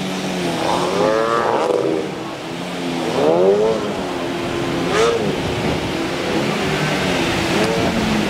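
Outboard motor of an inflatable rescue boat revving up and down in the surf, its pitch swooping up and falling back several times, over the hiss of breaking waves.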